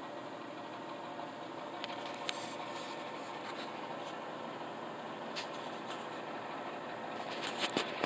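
A few sharp knocks from the attic, over a steady background hum: one pair about two seconds in, one single knock midway, and a quick cluster of several near the end.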